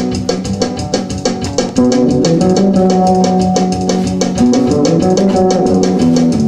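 Instrumental band music: electric guitar and bass over a drum kit keeping a steady beat, getting louder about two seconds in.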